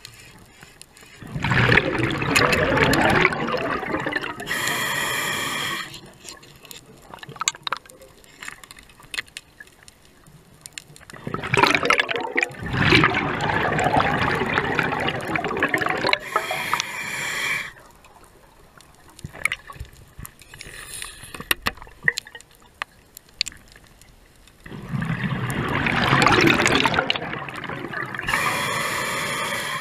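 A scuba diver breathing through an open-circuit regulator underwater: three slow breaths, each a few seconds of bubbling and hissing, with quieter pauses of several seconds between them.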